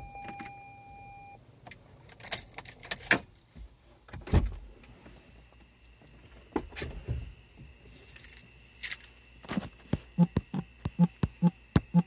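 A steady tone that cuts off about a second in, then scattered clicks, knocks and rattles of handling, ending in a quick run of clicks about four a second.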